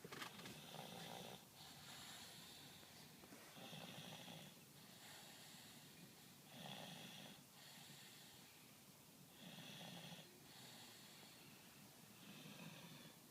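A sleeping person snoring quietly in a slow, regular rhythm: about five snores, roughly one every three seconds, with softer breaths between them.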